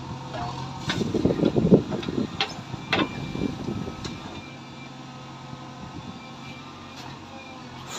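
JCB 3DX backhoe loader's diesel engine running while the backhoe arm works. It is louder and rougher for the first couple of seconds, with a few sharp metallic clanks from the arm and bucket as it swings and lowers into the trench. It settles to a quieter steady running after about four seconds.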